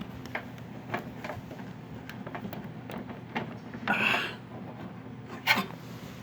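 Small clicks and taps of plastic and metal parts being handled while the bottom door interlock switch of a microwave oven is got at, with a brief scrape about four seconds in and a sharper click near the end, over a low steady hum.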